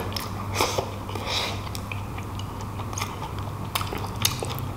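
Close-miked chewing and lip smacking on a mouthful of rice and beef, with small wet clicks scattered throughout, over a steady low hum.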